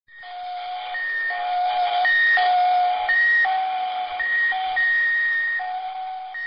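Electronic two-tone beeping: a low note and a high note taking turns, each held for about half a second, starting abruptly.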